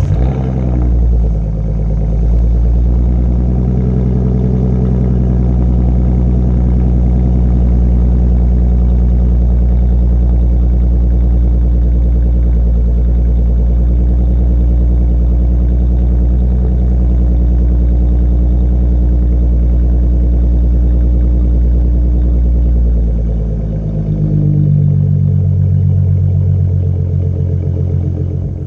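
2016 Ford Mustang's 3.7 L Cyclone V6 with Flowmaster Outlaw mufflers and an X-pipe, idling just after start-up: a steady raised idle out of the tailpipes that drops lower near the end, with the revs just beginning to climb at the very end.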